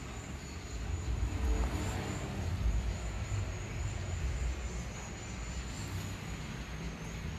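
Hot oil sizzling steadily in a frying pan around golden-fried slices of boiled egg as they are lifted out, over a low rumble.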